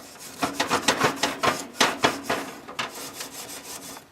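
A scraper worked quickly back and forth over barbecue grill grates, several scraping strokes a second, cleaning off burnt-on residue from the last cook.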